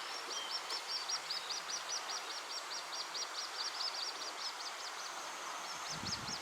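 Little grebe chicks begging for food with a fast string of short, high 'pi-pi-pi' peeps, about six a second. The peeps thin out a little near the end, over a steady outdoor hiss.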